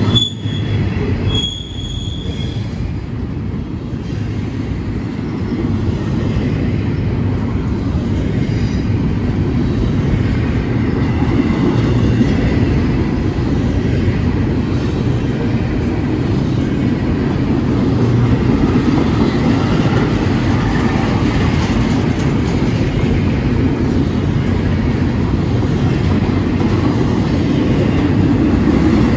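Freight cars of a CSX train, tank cars and intermodal well cars, rolling past: a steady rumble and rattle of steel wheels on rail. Two brief high-pitched wheel squeals come in the first two seconds or so.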